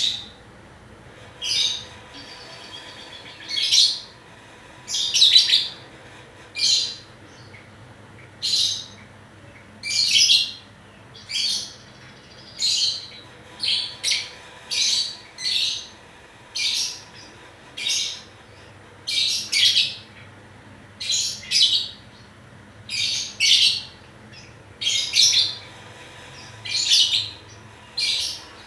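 Pet lovebird giving short, harsh, high-pitched cough-like calls, one every second or so and sometimes two close together, as it learns to imitate coughing.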